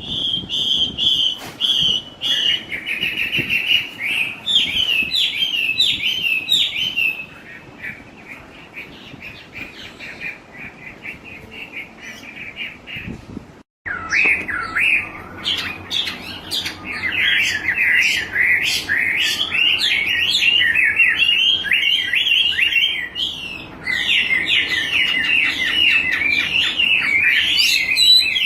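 Wambi bird singing a fast, continuous chattering song of rapid repeated notes. The song softens about seven seconds in, cuts out abruptly for a moment near the middle, then comes back louder.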